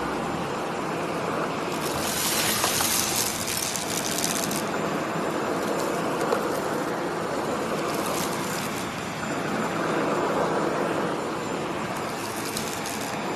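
Shark PowerDetect corded stick vacuum running steadily, with a thin high motor whine. Louder bursts of high rattling hiss come and go: about two seconds in for a couple of seconds, briefly around eight seconds, and again near the end.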